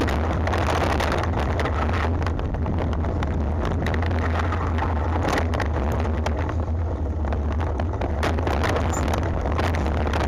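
Mountain bike riding fast down a rough dirt trail: heavy wind rumble on the microphone over tyre noise, with frequent rattling clicks and knocks from the bike over the bumps.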